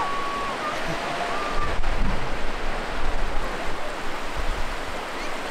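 Small waves breaking and washing through shallow surf in a steady hiss, with a deeper rumble about one and a half to five seconds in.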